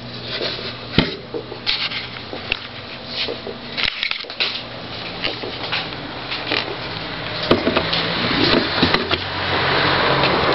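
Clicks and knocks of an old Corina blender being handled, its parts clattering, over a steady low hum; a rougher continuous noise builds in the second half.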